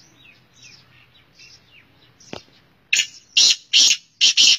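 Male black francolin calling: a quick run of about five loud, harsh, grating notes in the last second and a half, after faint chirping of small birds.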